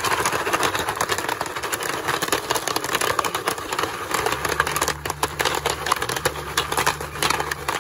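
Foil-domed stovetop popcorn pan shaken over a camp stove burner, the kernels popping inside in a rapid, dense crackle of clicks.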